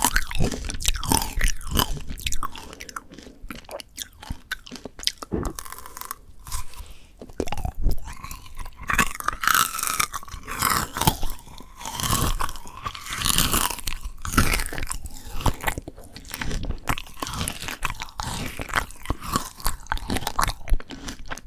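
Close-miked crunching and chewing of frozen Shine Muscat grape tanghulu: the hard sugar glaze cracks and shatters between the teeth, with irregular crunches and wet chewing throughout.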